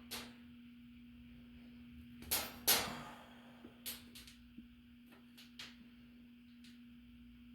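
Several short clicks and knocks from handling the Christmas Candy Mill's parts during the motor and belt repair, the loudest a pair about two and a half seconds in. A steady low hum runs underneath.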